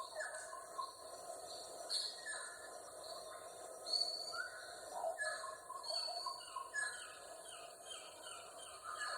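Rainforest ambience: a chorus of many birds calling at once, with short chirps and whistles at several different pitches overlapping and repeating throughout.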